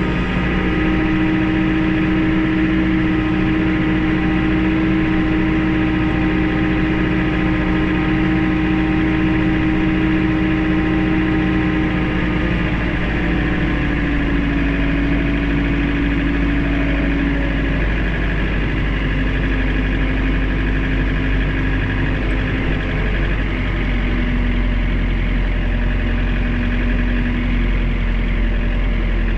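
Tractor engine running steadily under load, close up, as the tractor moves the flatbed truck along. The engine note drops slightly about halfway through and again a few seconds later.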